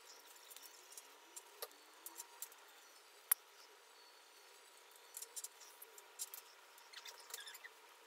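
Small clicks and crinkles of sticker paper being handled: scissors snipping a sticker out at the start, then stickers pressed onto a phone's hard back. One sharp tap about three seconds in is the loudest sound.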